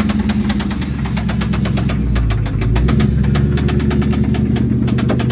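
Ford Mustang SN95's 2-valve 4.6-litre V8 idling with a rapid, even knocking, roughly eight to ten knocks a second, which the owners take for a rod knock.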